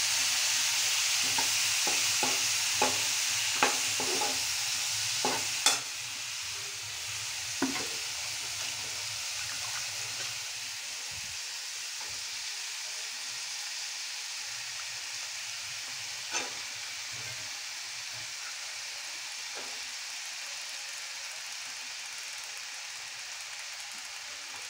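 Chopped cabbage sizzling in hot oil in a nonstick kadhai, with a steel spatula clicking against the pan several times in the first eight seconds and twice more later. The sizzle drops a step about six seconds in, then fades slowly.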